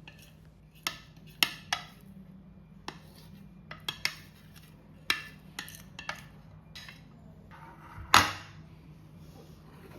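Utensils and dishes clinking and knocking in a kitchen: about a dozen short, sharp clinks at irregular intervals, with the loudest and longest near the end, over a low steady hum.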